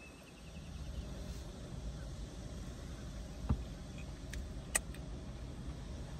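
Steady low vehicle rumble, with two sharp clicks a little past the middle.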